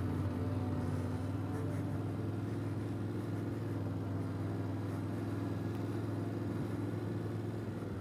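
Yamaha Ténéré 700's parallel-twin engine running at a steady, unchanging speed.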